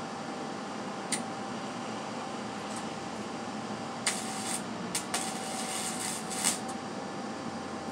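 Wire-feed welder's arc laying a tack weld: a short crackle about a second in, then the arc sputters from about four seconds in, with a brief break, and runs for about a second and a half before stopping. Steady background noise underneath.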